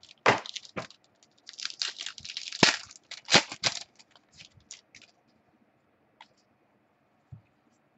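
Packaging of a 2015 Inception football card box being torn and crinkled open, with clicks and rustles from handling it; the rustling dies away about five seconds in, leaving a couple of faint clicks.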